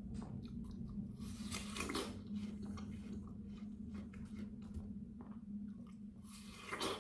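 Close-up chewing and biting of juicy watermelon flesh: wet crunching and smacking, with two louder crunches, one about a second and a half in and one near the end.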